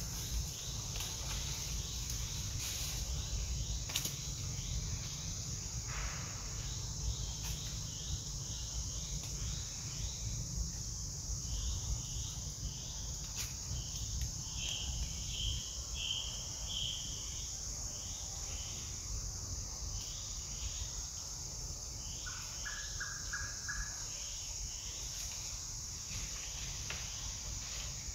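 Forest ambience: a steady high insect drone with short bird chirps repeating throughout, loudest about halfway through. Later on a quick run of about five lower bird notes, with a low rumble underneath.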